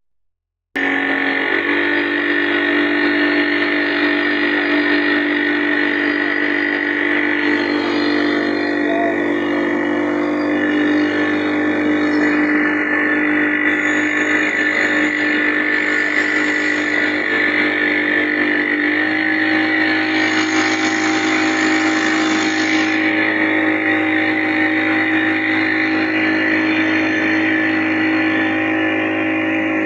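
An engine running steadily, its pitch stepping up slightly about two-thirds of the way through.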